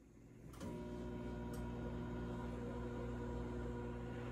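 GE microwave oven switching on with a click about half a second in, then running with a steady electrical hum as it heats.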